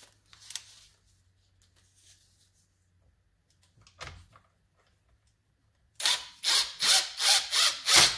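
Cordless power driver run in short pulses on a bolt, about three a second, starting about six seconds in; light knocks of handling the tool and parts before it.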